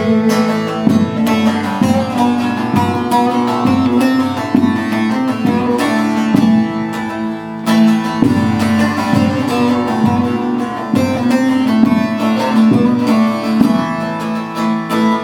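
Instrumental break in a Kurdish song: plucked string instruments play a melody over a steady pulse, with no singing.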